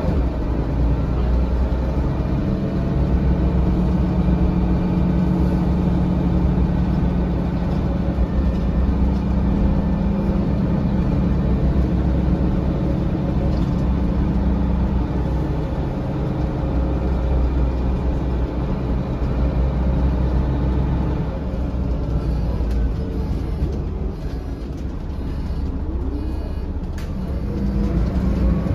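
Cabin sound of a 2004 Mercedes-Benz O500LE bus under way: a steady engine drone, strong at first, that eases off past the middle as the bus slows. It picks up again near the end with a rising whine as the bus pulls away, and there are a few light rattles.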